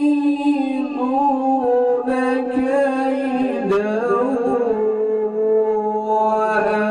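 A man's voice reciting the Quran in melodic tilawat style, holding long ornamented notes. About halfway through, the pitch steps down to a lower held note.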